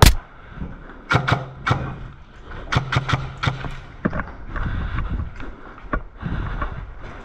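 Airsoft guns firing in short rapid bursts of sharp cracks with a low hum under each burst. A loud knock comes right at the start, and fainter scattered shots follow later.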